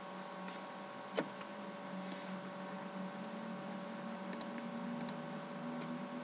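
Computer mouse clicks over a steady electrical hum: one click about a second in, then two quick pairs of clicks around four and five seconds in.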